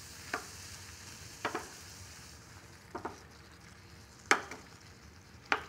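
Chicken in tomato sauce sizzling gently in a small skillet while it is stirred with a wooden spoon, with five short sharp knocks against the pan, the loudest about four seconds in.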